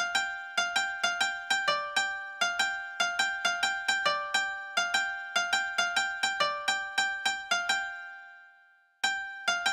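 Background music: a light melody of quick, evenly spaced notes, each struck sharply and fading, that dies away about eight seconds in and then starts again.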